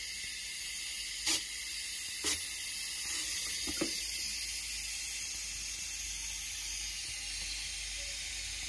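Air hissing steadily out of a panel radiator's opened bleed valve, with a few light clicks in the first few seconds. The hiss is air trapped in the radiator, the reason it heats only at the bottom because the water cannot rise to the top.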